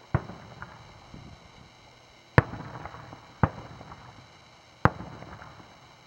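Aerial fireworks shells banging: four sharp, widely spaced bangs, each trailing off in an echo, with a few fainter pops between them.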